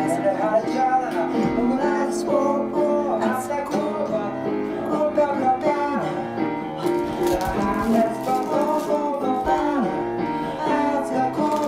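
Music playing: a song with strummed acoustic guitar.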